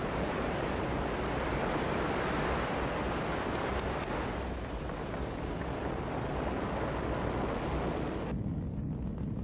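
Ariane 5 rocket at liftoff, its Vulcain main engine and two solid boosters making a steady, noisy low rumble. About eight seconds in, the higher part of the noise falls away, leaving a duller rumble.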